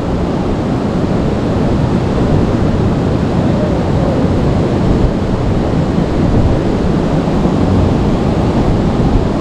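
Steady rushing noise of river water, with wind on the action camera's microphone.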